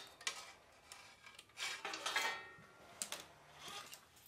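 Light metallic clanks and rattles, a few of them ringing briefly around the middle, as the sheet-metal dash panel of a Simplicity 4040 garden tractor is lifted off with its wiring still attached.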